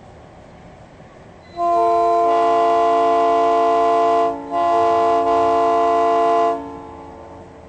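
Truck-mounted air train horn from Hornblasters sounding a chord of several steady chime tones. It gives a long blast of nearly three seconds, a short break, then a second blast of about two seconds that cuts off.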